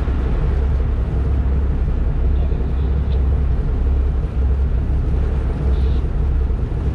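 Fishing boat's engine running steadily, a loud low rumble.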